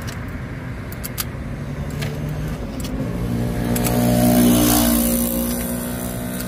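A motor vehicle passing close by on the road over steady traffic rumble. Its engine grows louder to a peak about four and a half seconds in, then fades. A few light clicks come in the first half.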